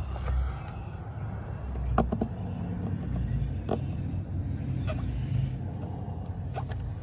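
A low steady rumble under a handful of small, sharp clicks and scratches as a fingernail picks excess Plasti Dip off the edge of a plastic car emblem.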